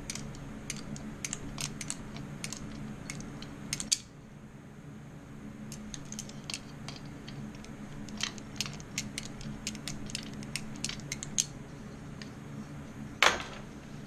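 Irregular light metallic clicking and ticking as the brass terminal nut is twisted off a spark plug by hand, over a steady low hum, with one sharper knock near the end.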